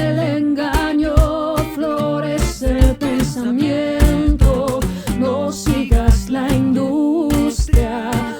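Latin pop band playing a song, with a lead voice singing wavering, vibrato-laden lines over bass and a steady drum beat.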